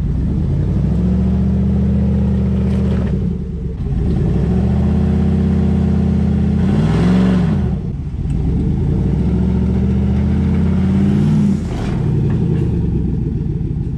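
2022 Chevrolet Silverado ZR2's 6.2-litre V8 under throttle in three long pushes, with a quick rise and fall in revs near the middle, as the truck crawls down a rocky ledge with both lockers engaged.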